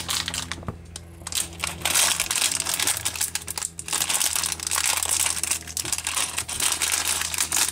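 A small clear plastic bag of LEGO pieces being crinkled and worked open by hand, the crackling thickening about two seconds in and going on in fits.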